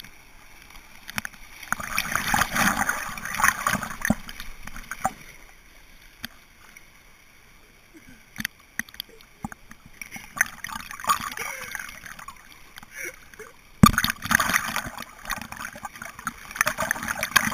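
River water splashing and gurgling right at the surface against the microphone while drifting through shallow rapids, coming in bursts, with a quieter spell near the middle. About fourteen seconds in there is one sharp knock, then steady splashing.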